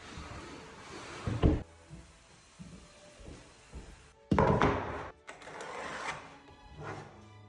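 Background music, with wooden knocks and thuds as a kitchen worktop is pushed into place on the base units; the loudest is a sharp thud about four seconds in.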